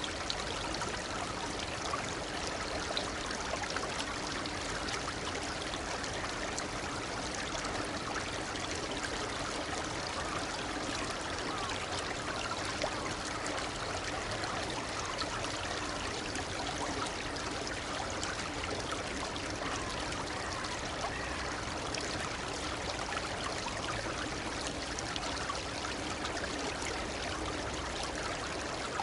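Shallow murmuring brook (seseragi) babbling steadily, an even bubbling, trickling flow that neither rises nor falls.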